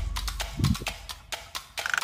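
Nylon fishing handline being hauled in by hand: a run of irregular light clicks and knocks, with a short high squeak near the end.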